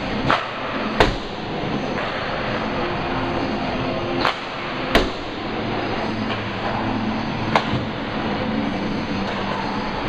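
Hockey play in a rink: a steady background rumble broken by about five sharp cracks of sticks and puck, the loudest about a second in and about five seconds in.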